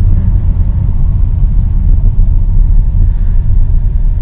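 Steady low rumble of a car driving along a road, heard from inside the cabin: engine and road noise.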